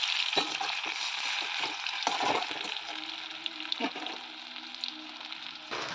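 Pakoras frying in hot oil: a steady sizzle, with a few short knocks of a utensil in the pan.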